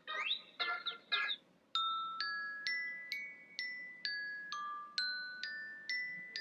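iPhone iOS 7 ringtone playing through the phone: a few quick gliding chirps, then a melody of struck glockenspiel-like chime notes, a little over two a second, each ringing on.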